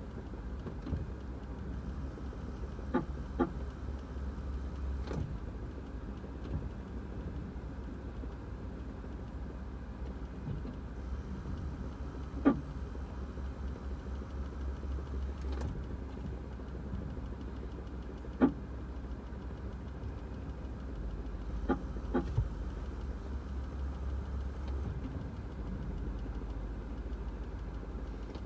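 2006 Toyota Prius ABS brake actuator chirping: about nine short, sharp chirps at irregular intervals, some in quick pairs, over a steady low hum. The chirp is the actuator fault that Toyota's brake actuator warranty extension may cover.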